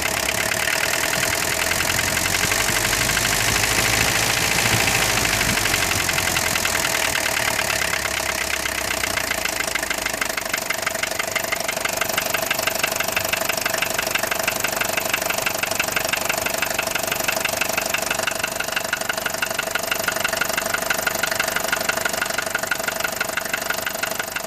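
Mercedes-Benz OM615 four-cylinder diesel engine running near idle with a fast, steady knocking: the engine knock that the owner is recording.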